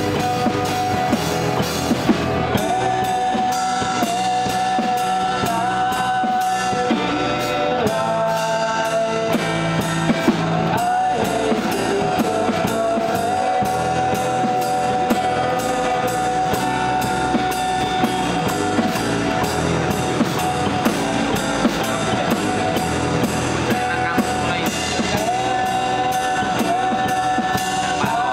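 Live acoustic band: two acoustic guitars strummed, with a drum kit and cymbal played with sticks keeping a steady beat, and a man singing long held notes into the microphone.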